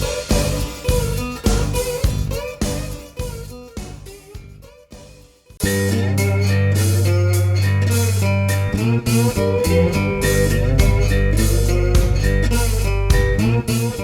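Guitar-led instrumental background music with a steady beat. It dies away a little over four seconds in, then comes back loud with a heavy held bass about halfway through.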